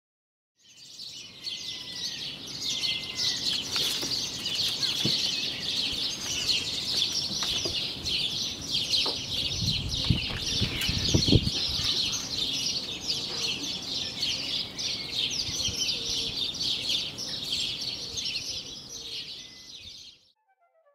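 Many small birds chirping and twittering together in a dense chorus, fading in about a second in and stopping abruptly near the end. A couple of low rumbles come about halfway through.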